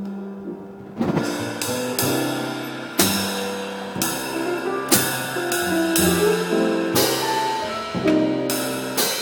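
A small live band playing: a drum kit with cymbal crashes and bass drum over low bass notes and other sustained pitched notes. The drums come in strongly about a second in.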